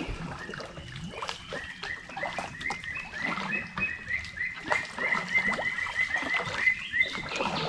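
Chorus of small animal calls from the swamp forest: many short chirps repeated rapidly, with scattered clicks and knocks among them.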